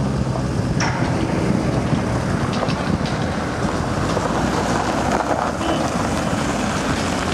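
Wind buffeting the microphone over the low rumble of a freight train's wagons rolling away down the line.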